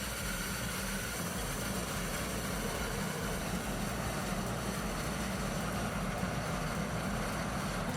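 A heavy machine's engine running steadily, a constant drone with a low hum.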